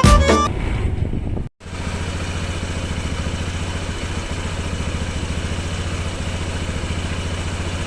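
Honda PCX 160 scooter's single-cylinder engine idling steadily, with fast, even firing pulses. There is a brief break about a second and a half in.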